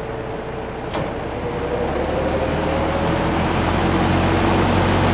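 GE W-12 box fan running, with a sharp switch click about a second in, after which the motor speeds up: its hum rises in pitch and grows louder over the next couple of seconds.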